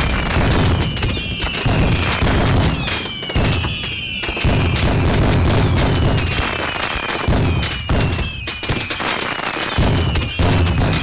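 Dense fireworks and firecrackers going off. Heavy low booms and sharp cracks follow one another with no break, under many short whistles that each fall in pitch, several in quick succession.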